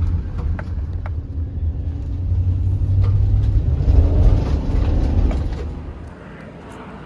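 Low road and engine rumble of a car being driven, which drops away sharply about six seconds in.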